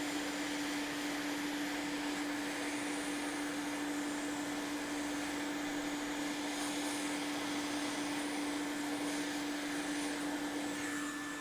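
Hot air rework station blowing at full airflow: a steady rush of air with a low steady hum, heating flux at 200 degrees so it spreads in a thin coat on an iPhone logic board.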